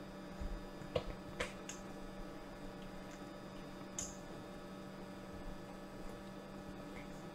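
Steady electrical hum, with a few faint clicks and scrapes of a spatula against a stainless steel mixing bowl as cheesecake filling is folded, about a second in, again shortly after, and once near the middle.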